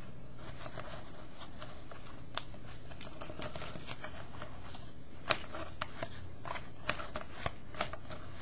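Trading cards being handled and flipped through a pack, with soft rustles and scattered short clicks and snaps, a few sharper ones in the second half, over a faint steady low hum.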